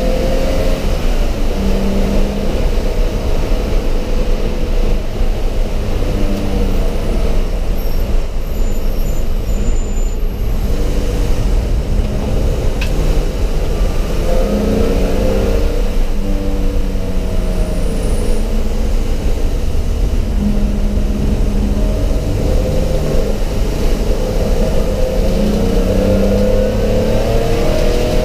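Race car engine heard from inside the stripped cabin, its pitch climbing repeatedly under acceleration and dropping back, over a steady low rumble of road and wind noise.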